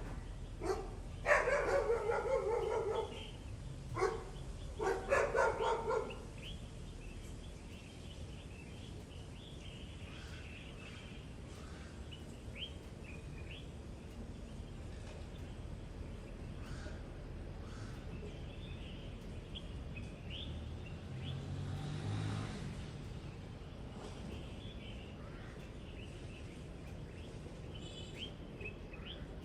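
Small birds chirping and singing in a dawn chorus, with several loud, harsh animal calls in the first six seconds. A low rumble swells briefly a little past twenty seconds in.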